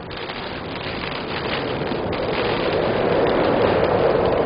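Freight train boxcars rolling past close by: the steady noise of steel wheels running on the rails, growing louder over the second half.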